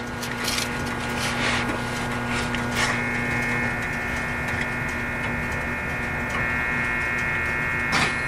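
Cab-car interior of a JR West 521 series EMU: a few clicks, then from about three seconds in the steady electric whine of its Toshiba IGBT VVVF inverter as traction power comes on, over the car's running noise.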